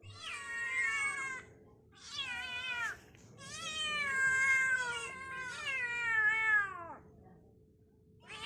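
Kitten meowing, four drawn-out, high-pitched meows in a row, each falling in pitch at its end.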